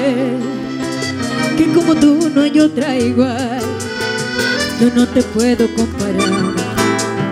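Live vallenato-style band playing an instrumental passage: a button accordion leads a wavering melody over acoustic guitar and keyboard chords, with hand percussion ticking a steady beat.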